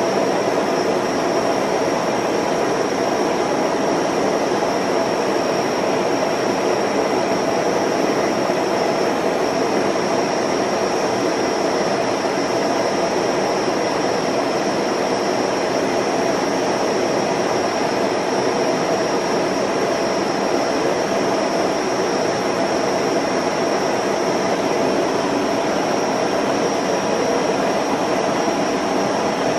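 Film projector running: a steady, even whir with a thin high whine.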